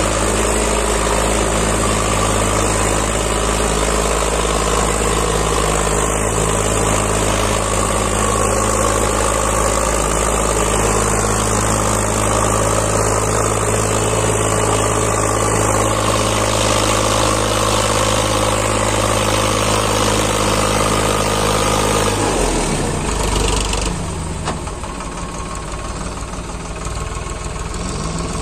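Diesel tractor engines running steadily under heavy load, a Farmtrac 60 towing a Kubota MU5501 and its loaded trolley. About 22 seconds in the engine note breaks up and turns rougher, and soon after it becomes a little quieter.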